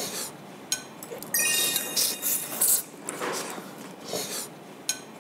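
People slurping noodles off chopsticks, several short sucking slurps. Between about one and a half and three seconds in, a bright chime-like ringing joins in.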